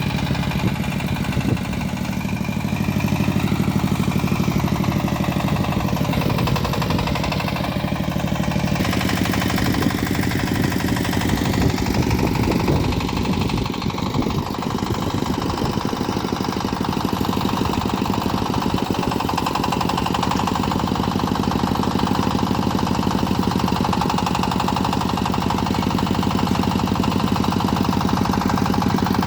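Mini backhoe loader's engine running steadily, its tone shifting about nine seconds in and wavering for a couple of seconds around the middle.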